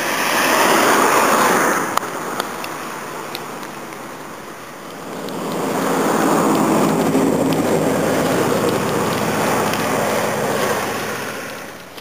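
Road traffic passing: a vehicle goes by in the first couple of seconds, then a second, longer pass builds from about five seconds in and fades near the end, each a rising and falling rush of tyres and engine.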